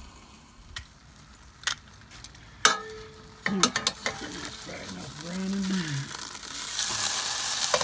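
A few clicks and knocks as the ceramic grill's lid is opened, the loudest ringing briefly, then corned beef brisket sizzling as it browns in a hot cast iron Dutch oven. The sizzle grows louder over the last couple of seconds as the meat is turned.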